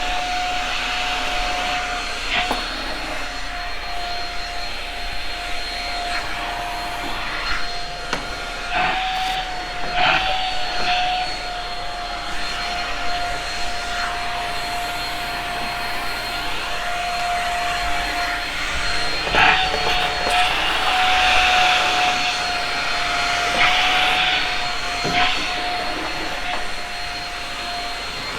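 Shark Rocket stick vacuum running with a steady whine and airflow hiss as it vacuums carpet edges, with scattered short knocks of the nozzle against the floor and edges.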